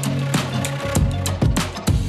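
Background music with a steady drum beat and bass line, in a funk-like style.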